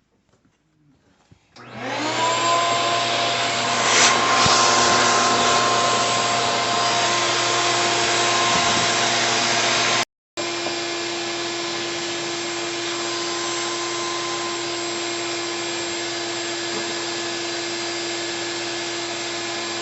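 Shop vac switched on about a second and a half in, its motor whine rising up to speed, then running steadily as it sucks through the dishwasher's drain tube to clear the drain of any blockage. A short break in the sound about halfway through.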